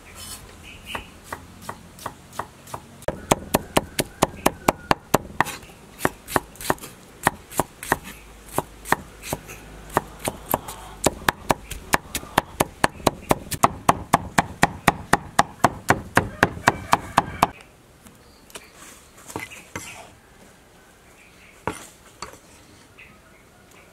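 Cleaver chopping tomatoes on a wooden chopping block: a long run of sharp, evenly paced knocks, several a second, that stops about three quarters of the way through, followed by a few scattered knocks.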